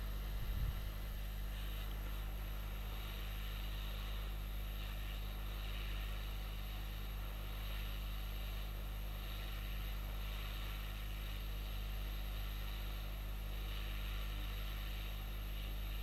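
Hot-air rework station blowing steadily onto a phone logic board to melt the solder under a connector, with a constant low electrical hum beneath it. A soft low bump about half a second in.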